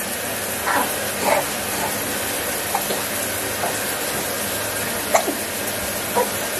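Shower spray running steadily, with a few brief faint baby noises over it.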